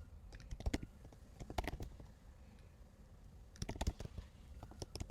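Typing on a computer keyboard: short, irregular runs of keystrokes with pauses between them.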